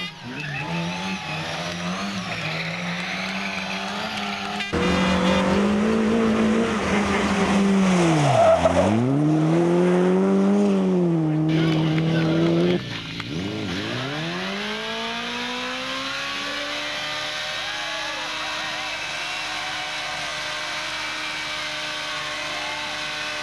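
Rally car engines at high revs through a run of edited clips. The engine note dips sharply and climbs back about nine seconds in, and in the last part a single engine rises in pitch and then holds a steady high-revving note.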